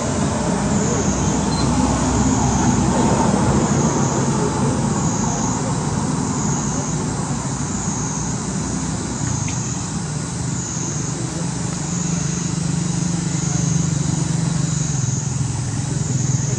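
Steady outdoor background: a low, continuous vehicle-like rumble, with a high insect buzz that swells and fades about once a second.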